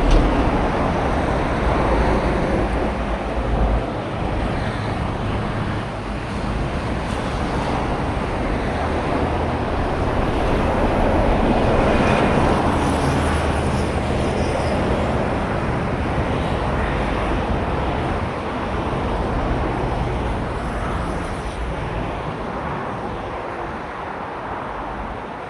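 Steady rush of road traffic from the Pan Island Expressway alongside, growing louder around the middle and easing off near the end.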